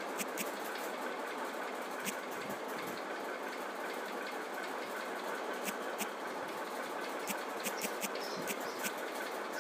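Light, irregular clicks of fingers tapping a smartphone's on-screen keyboard while a password is typed, over a steady background hiss and hum.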